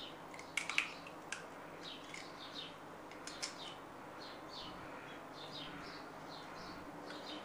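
Hen's eggshell cracking and snapping apart by hand, a few sharp clicks just under a second in and again about three and a half seconds in, while the yolk is passed between the shell halves. Small birds chirp repeatedly in the background, short quick calls throughout.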